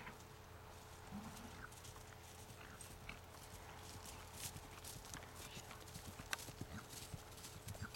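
Soft hoofbeats of a barefoot pony mare moving over grass under a rider, an uneven run of light thuds that grows a little louder as she passes close by.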